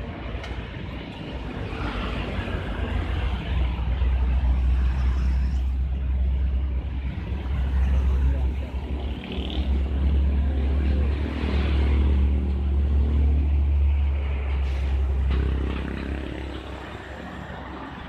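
Road traffic: motor vehicles running past close by, their engine rumble building for several seconds and then fading away near the end.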